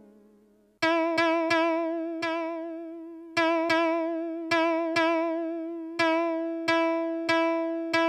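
Suiko ST-50 koto synthesizer playing a plucked koto-like voice: a note dies away, then about a second in the same note is plucked over and over in an uneven rhythm, each one wavering with vibrato and fading.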